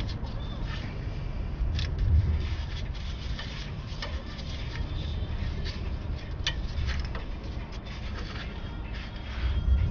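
Scattered clicks and scrapes of parts being handled and worked loose under a car, over a steady low rumble.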